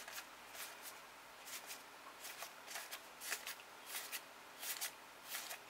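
World of Warcraft trading cards sliding against each other as a handful is leafed through card by card. They give a dozen or so faint, irregular swishes and flicks.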